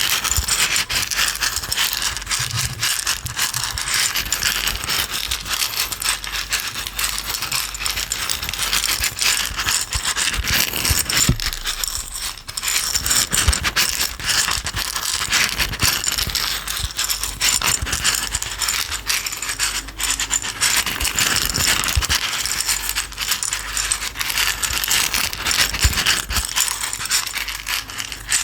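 Small container of small dry items shaken steadily, giving a dense, continuous rattle with a brief lull about twelve seconds in.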